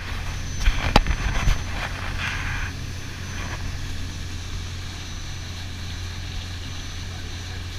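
Charter boat's engine running steadily under way, a low drone with the rush of wake and wind over it. A few sharp knocks in the first two seconds.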